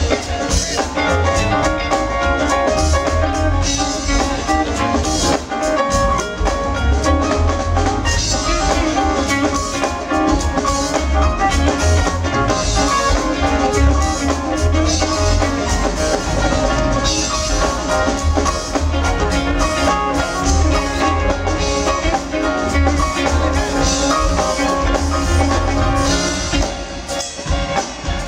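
Live band playing an instrumental smooth-jazz/funk groove: drum kit with cymbals, a deep pulsing bass line and keyboards, loud and continuous.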